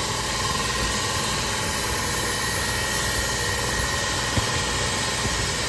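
Steady machine drone with a hiss, and one faint tick about four and a half seconds in.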